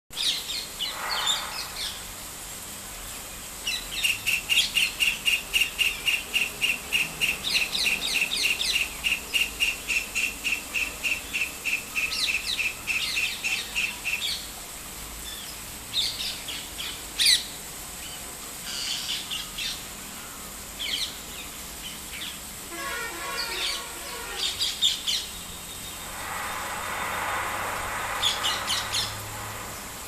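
White-throated kingfisher calling: a long series of evenly repeated high notes, about three to four a second, beginning about four seconds in and running for some ten seconds, followed by shorter bursts of calls later. Other small birds chirp in between.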